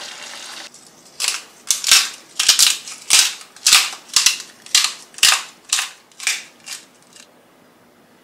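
The pan sizzles briefly at the start, then a hand spice grinder is twisted over the pasta: about a dozen crunchy grinding strokes, roughly two a second, growing fainter toward the end.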